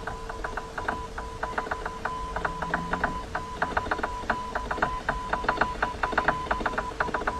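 Morse code sent by hand on a telegraph key: a single beeping tone keyed on and off in quick short and long pulses, with a faint steady hum beneath.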